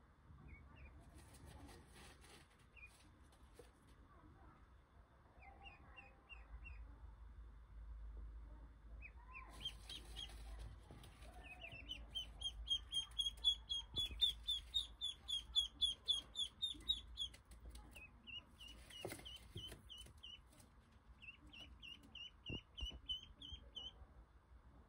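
Ducklings peeping: scattered short chirps at first, then a quick run of loud, rising peeps about four a second through the middle, with shorter runs near the end. A couple of soft knocks come in the later part.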